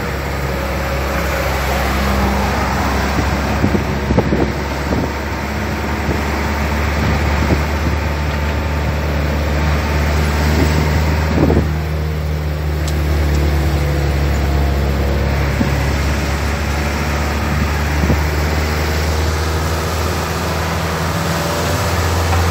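Car driving at highway speed, heard from inside the cabin: a steady low engine drone under a broad rush of tyre and road noise. There are a couple of brief knocks, one about four seconds in and one near the middle.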